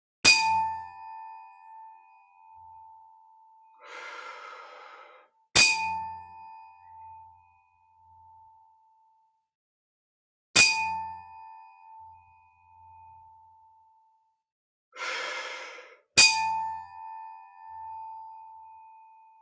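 A tuning fork is struck four times, about five seconds apart. Each strike gives a sharp click and then a clear, high ringing tone that fades with a slow pulsing over a few seconds. A breath out is heard before the second and the last strikes.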